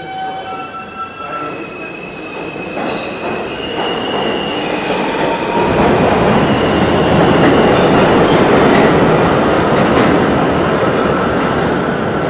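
New York City subway train coming in: steel wheels squeal on the rails in several held high tones, then the train's rumble and rush grows louder from about five seconds in and stays loud.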